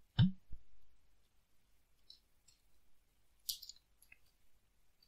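Scattered keystrokes on a computer keyboard, typing a command a few keys at a time, with a brief low thump near the start.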